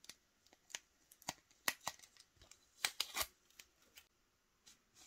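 Crisp rustling, scraping and clicking of paper and plastic as a mail envelope and the photocards inside it are handled and drawn out: a run of irregular short strokes, loudest about two and three seconds in.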